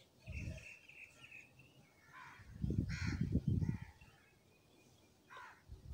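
Whole garlic cloves tipped from a plastic strainer onto raw goat meat: a quick run of soft thuds about two and a half seconds in, and a lighter one at the start. Birds chirp faintly in the background.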